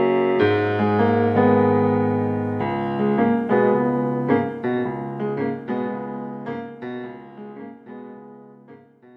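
Piano-voiced music played on a Yamaha MOXF synthesizer keyboard: held chords that give way to separate, slower notes, fading out gradually towards the end.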